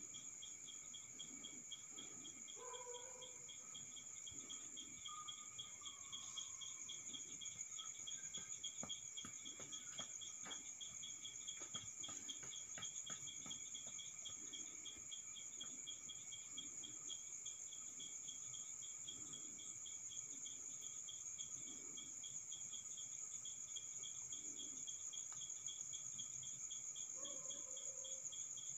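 Night chorus of crickets and other insects: several steady high-pitched trills layered together, one of them pulsing rapidly and evenly.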